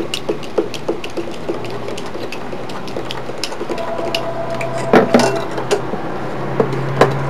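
A nut driver turning the screw of a hose clamp, clicking a few times a second, with a couple of louder metal knocks about five and seven seconds in.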